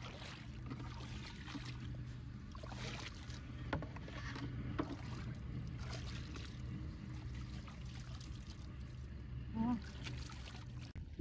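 Muddy ditch water splashing and sloshing as someone wades through it, in short irregular strokes over a steady low hum.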